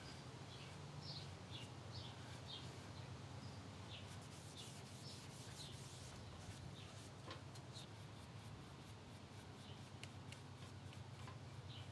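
Faint rubbing and scuffing of a rag in a gloved hand wiping white gel stain along a wooden table leg. A steady low hum and short high chirps sit in the background.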